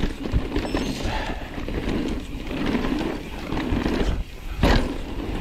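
Mountain bike riding down a wet dirt trail: steady rumble of tyres on mud and the bike rattling, with wind on the camera microphone, and one sharp knock near the end.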